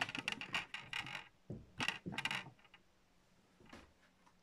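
Quick run of small, sharp clicks and clinks from hands working over a laptop's plastic case and loose screws, dense for the first second or so, then a few more clusters of taps before it goes nearly quiet.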